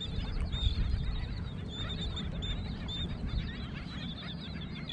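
Birds calling: many short, high chirps repeating irregularly over a steady low rumble.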